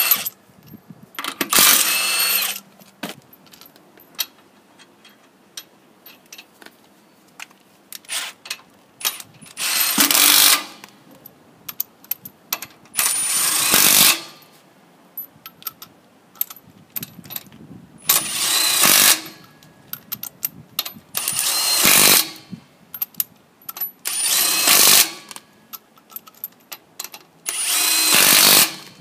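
Milwaukee M18 Fuel Gen 2 1/2-inch impact wrench (M18FIWF12) rattling on wheel nuts in about seven separate bursts of a second or so each. Light clicks come in the quieter gaps between bursts.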